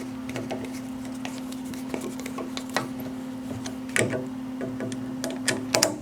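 A steady hum with scattered light clicks and knocks, the loudest a cluster near the end.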